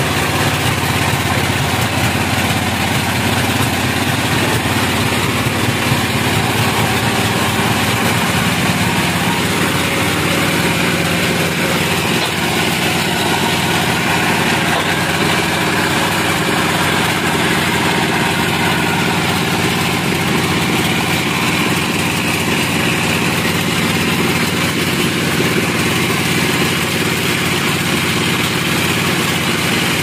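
Band sawmill running steadily: the drone of its power unit with the band saw blade cutting through a hardwood cant.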